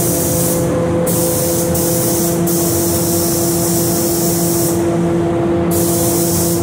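Gravity-feed paint spray gun hissing as the first red base coat goes on, in passes broken by short gaps where the trigger is let off, the longest about five seconds in. A steady low hum runs underneath.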